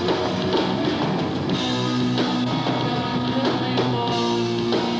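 Rock band playing: guitar and drum kit in a short instrumental stretch between sung lines of the song.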